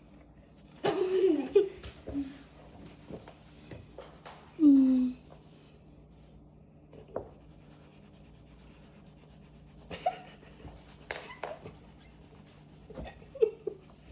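Drawing on paper, a faint, steady scratching of the drawing tool across the page, broken by a few short vocal sounds, the loudest about five seconds in.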